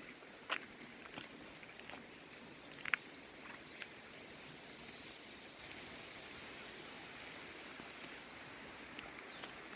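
Faint, steady outdoor ambience with a handful of short sharp clicks scattered through it, the loudest about three seconds in.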